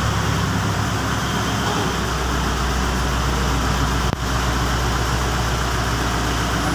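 Engine running steadily at idle, an even low hum with a brief dip about four seconds in.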